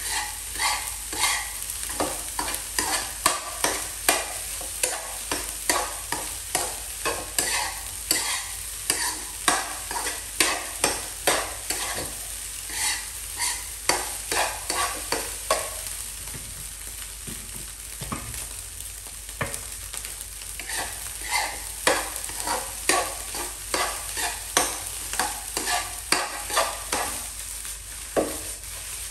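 Fried rice being stir-fried in a nonstick frying pan: a metal spatula scrapes and taps against the pan in a quick, repeated rhythm over a steady sizzle. The strokes thin out for a few seconds around the middle, then pick up again.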